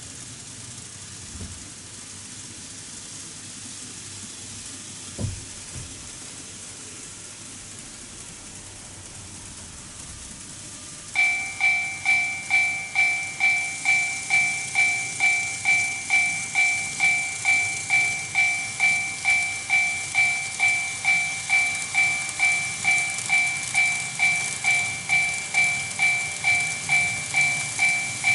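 Electronic warning bell of a TOMIX Automatic Level Crossing II, a model-railway crossing unit, switching on suddenly about eleven seconds in and ringing a two-tone ding about twice a second; this is the signal that a train is approaching the crossing. Before it there is only a faint steady hiss, with one soft knock about five seconds in.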